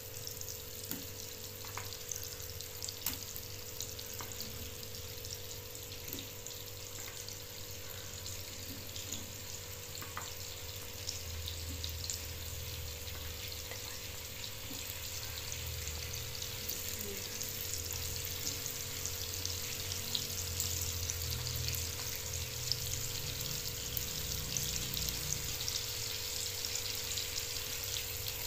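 Banana halves frying in melted margarine in a non-stick pan: a steady sizzle with small crackles that grows a little louder as more banana goes in. A faint steady hum sits underneath.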